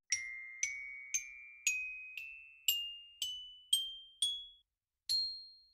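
Outro jingle of bright, bell-like chime notes. About nine notes are struck roughly twice a second, each a step higher than the last and each ringing briefly. After a short pause, one higher final note rings out.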